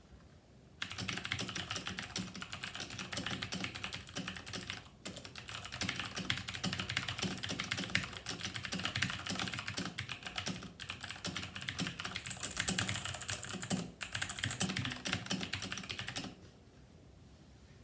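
Fast, continuous typing on a computer keyboard during a typing-speed test, a dense run of key clicks. It starts about a second in, breaks off briefly twice, and stops shortly before the end.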